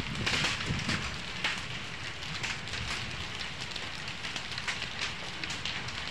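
Hail and rain falling, a steady patter on the ground broken by many sharp ticks of hailstones striking, over a low rumble.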